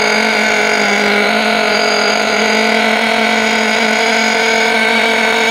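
Alpha Dragon two-stroke nitro glow engine of an RC buggy running at a steady speed, its pitch held level, during break-in. The engine is tuned very rich, so it is throwing a lot of unburnt oil out of the exhaust pipe.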